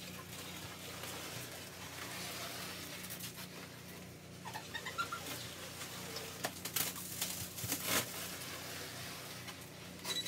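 Green plastic stretch wrap being pulled off the roll and wound around a car, crackling and squeaking as the film stretches, with a few sharper crackles between about six and eight seconds in.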